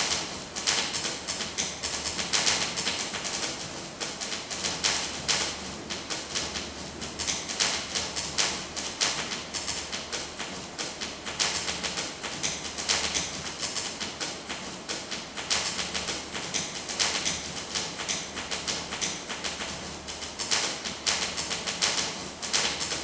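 Paper being crumpled and rustled: a dense, irregular crackle that swells and eases in waves.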